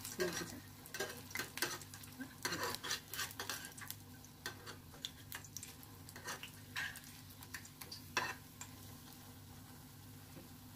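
Malpua batter deep-frying in hot refined oil in a kadai, the oil sizzling, while a perforated metal slotted spoon clinks and scrapes against the pan repeatedly over the first few seconds, then only now and then.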